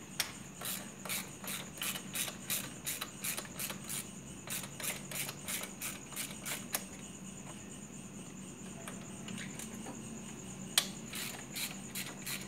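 Night insects chirping: a steady high trill with a pulsing chirp about three times a second. The chirping pauses for a few seconds past the middle and then resumes. A low steady hum runs underneath.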